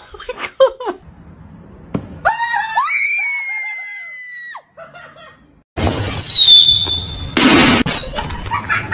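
A long, high-pitched scream held for about two seconds, then a second shrill cry that slides downward, with a loud noisy burst right after it.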